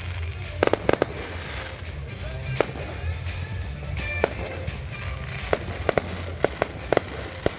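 Scattered sharp firecracker pops, about a dozen, some coming in quick clusters of two or three, over background music.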